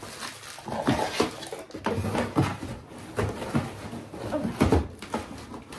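Cardboard box and packing being handled and rummaged through, with irregular rustles, scrapes and light knocks.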